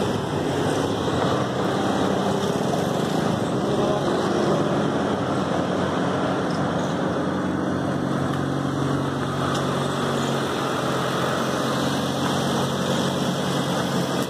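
Maruti Suzuki Esteem's engine idling steadily during an HHO engine carbon-cleaning treatment, with a low even hum.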